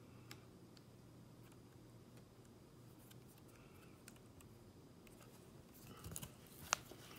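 Near silence: faint room hum with a few soft clicks, then quiet handling rustles and a sharper click near the end as the slime is handled.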